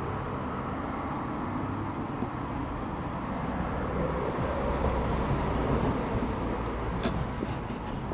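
Steady outdoor background rumble, low and even, swelling a little around the middle, with one light click near the end.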